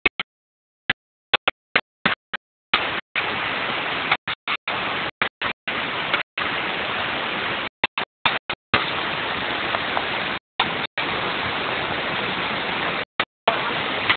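Steady rushing of flowing water, an even hiss, cut off again and again by sudden gaps of complete silence where the recording drops out.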